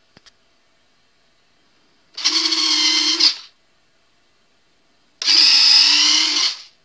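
Retract motors of an E-flite RC airliner's landing gear running twice, each a motor whine of just over a second: first retracting the wheels into the wings and fuselage, then extending them again. A faint click comes just before.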